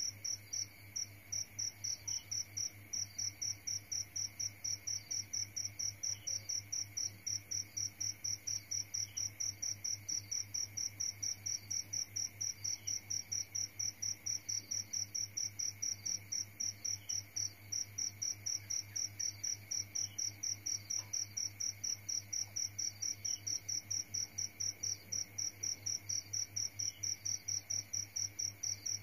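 A cricket chirping steadily: a high, rapid, evenly spaced series of chirps that carries on without a break.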